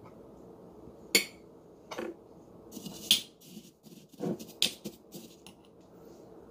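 Metal cutlery against a glass jar and a plate: a handful of sharp clinks and taps as a fork is set down and a metal spoon dips into and scoops from the jar, over a steady low hum.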